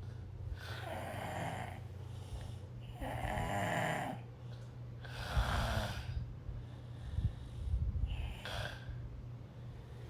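A person snoring in their sleep, one rasping snore about every two seconds.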